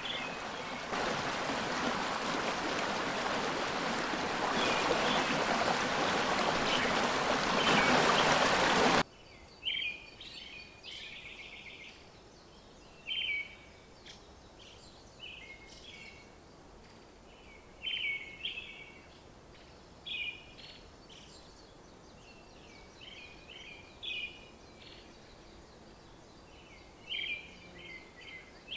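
Water in a stream rushing for about nine seconds, then cutting off abruptly. After that, a quiet background with a songbird singing short chirping phrases about every two seconds.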